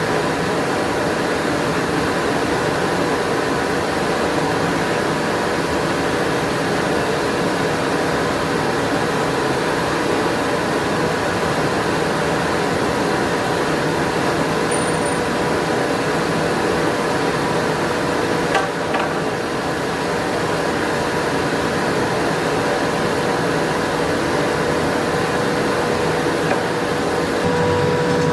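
Forge running steadily: a constant rushing roar with a faint hum. A single brief click comes about two-thirds of the way through.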